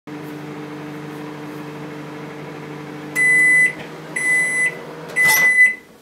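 Daewoo microwave oven running with a steady hum as its timer runs out, then three beeps at one pitch about a second apart signalling the end of the cooking cycle. Over the third beep the door latch clicks open and the hum stops.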